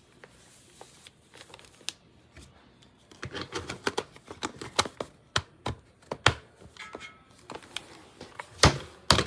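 Sharp plastic clicks and knocks from handling a hair dryer and its plug and attachments, sparse at first and coming thick and fast from about three seconds in, with two louder knocks near the end. The dryer itself is not running.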